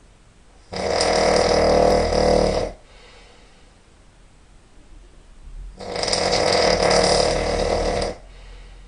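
A person snoring really loud: two long snores of about two seconds each, some five seconds apart, with quiet breathing in between.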